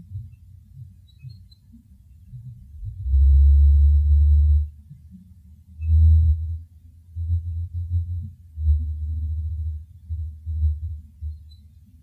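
A series of low buzzes: one long buzz of about a second and a half, then another, then a string of shorter ones.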